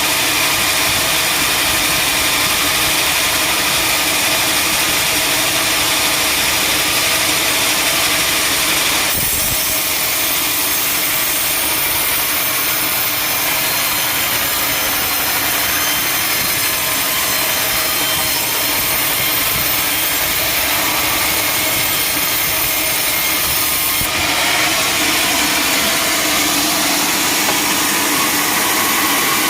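Sawmill saw running steadily and cutting through a teak log, over a steady machine hum. The cutting sound turns brighter and hissier for a long stretch in the middle.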